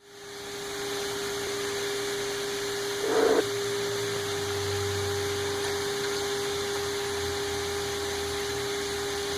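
A workshop machine running steadily with a constant hum and a hiss of noise, rising in over the first second, with a brief louder burst about three seconds in.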